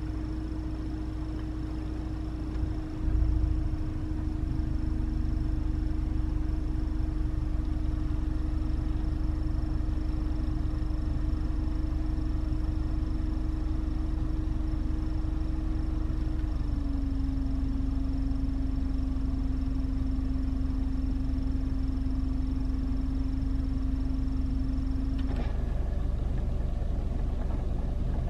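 Car air-conditioning system making an abnormal steady whine over the low rumble of the idling engine. There is a short knock about three seconds in; the whine steps down slightly in pitch past the halfway point and cuts off suddenly near the end.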